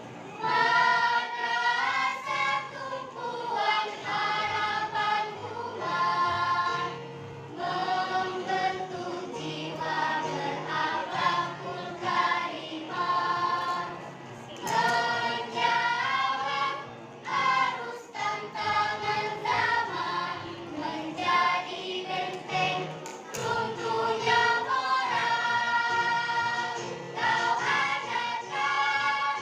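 A choir singing a song in several voices, the phrases separated by short breaks every few seconds.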